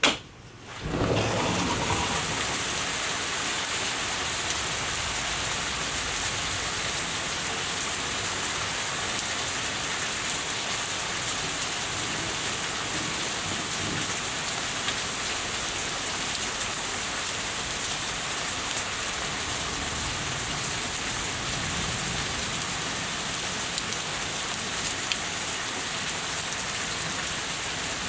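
Heavy rain pouring steadily, drumming on surfaces and running off a house, swelling in about a second in after a sharp click. Low thunder rumbles faintly twice behind the rain, near the middle and again later.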